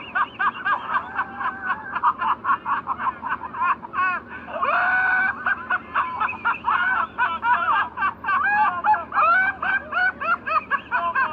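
A high-pitched voice laughing rapidly and without pause in a long cartoonish "hahahaha", broken by one longer held cry about five seconds in.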